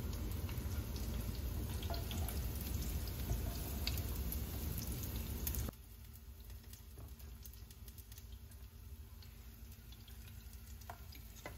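Oil sizzling in a frying pan with vegetables, with scattered small crackles and pops. The sizzle drops abruptly to a quieter level about six seconds in.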